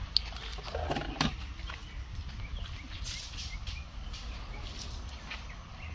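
Outdoor yard ambience: a steady low rumble of wind on the microphone, with short high chirps and a few sharp clicks scattered through.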